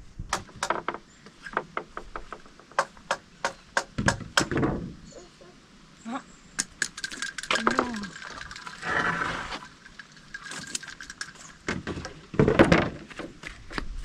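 Irregular sharp clicks and knocks, with a short voice-like call about eight seconds in and a heavier knock or scrape near the end.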